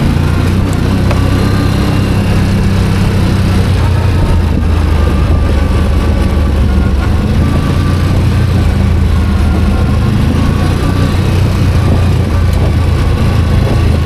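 ATV engine running steadily while under way, with a continuous haze of ride noise beneath it.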